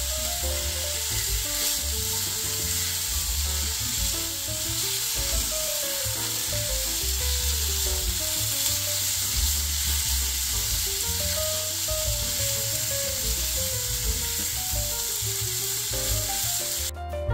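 Sliced garlic and mushrooms sizzling steadily as they fry in olive oil in a nonstick pan, stirred with a spatula.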